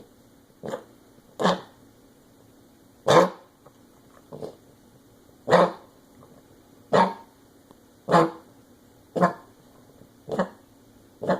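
A dog coughing over and over: about ten short coughs, roughly one a second, some louder than others.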